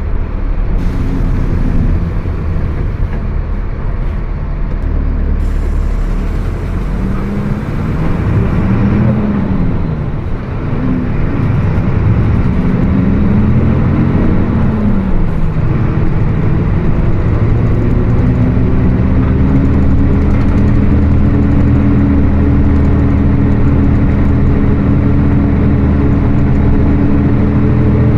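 Mercedes-Benz OF 1724 BlueTec 5 bus running on the road. Its pitch rises and falls a few times, then holds steady and slowly climbs in the second half, over a loud growl from the differential.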